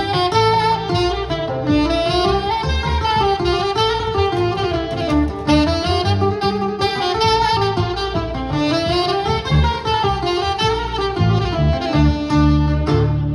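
Live small-group jazz: a saxophone solos in quick runs of notes that climb and fall, over acoustic guitar and upright double bass. The saxophone line stops near the end.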